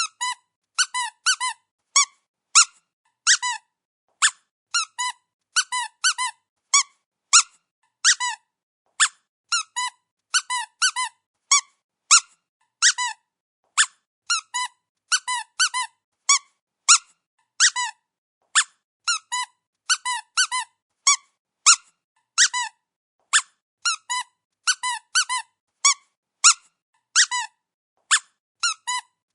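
Rubber dog squeaky toy squeezed again and again: short, high squeaks, some with a quick bend in pitch, coming singly or in quick runs of two or three, about two to three a second, with clean silence between them.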